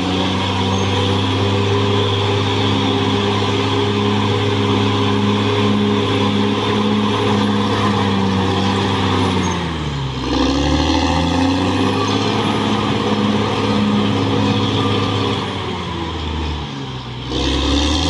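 Caterpillar D6R XL bulldozer's diesel engine running hard and steady, its note sagging and recovering about ten seconds in and again shortly before the end, as the dozer finishes a push of earth and changes direction.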